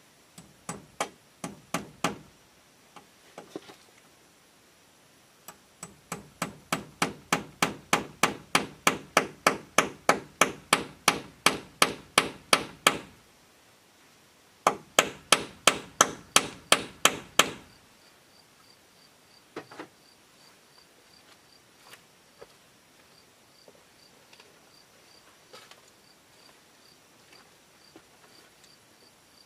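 Hand hammer striking the wooden roof frame in quick, regular runs of blows, about three to four a second. A short run comes first, then a long run that grows louder, then a third run. The hammering stops a little over halfway through, and a faint pulsing insect trill carries on.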